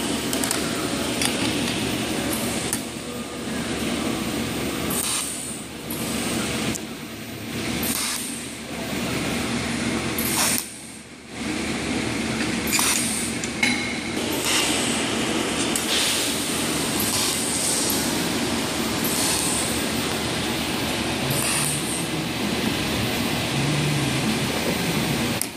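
Steady mechanical din of a metalworking shop, with light metallic clinks. It drops out briefly about 11 seconds in.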